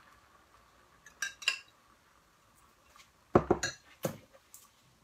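Metal kitchenware clinking and knocking: a metal ladle and a künefe pan being handled and set down, with a couple of light clinks about a second in and a louder run of knocks past the midpoint.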